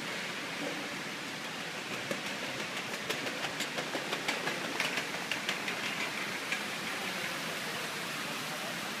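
Steady hiss of room noise in a large tiled lobby, with a quick run of sharp clicks, about four or five a second, for some three seconds in the middle.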